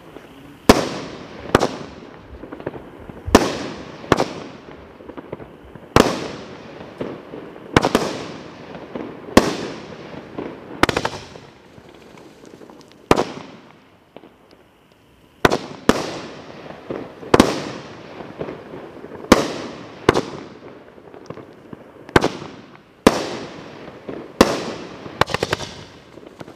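Cutting Edge Fireworks 'Gunsmoke' multi-shot fireworks cake firing shot after shot. Sharp bangs come mostly about a second apart, each trailing off in an echoing tail, with a pause of about two seconds midway and a quicker run of shots near the end.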